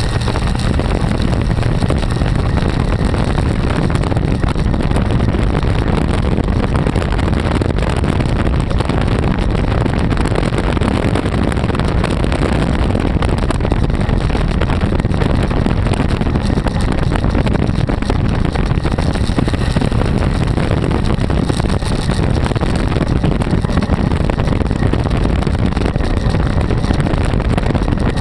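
350 small-block Chevy V8 of a trike running steadily while cruising at road speed, with wind rushing over the microphone.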